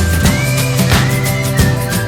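Background music with a steady beat: drum hits about twice a second over a bass line and a melody.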